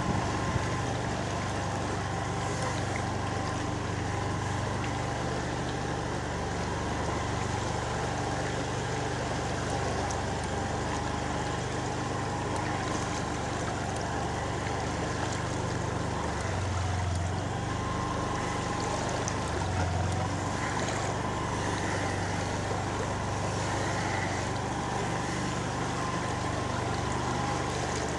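Motorcycle engine running steadily while riding through flood water, with a steady wash of water noise.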